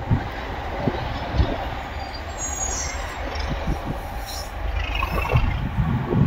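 Pair of Class 37 diesel locomotives hauling a test train away under power, their English Electric V12 engines making a steady low rumble, with brief high wheel squeal about two and a half seconds in.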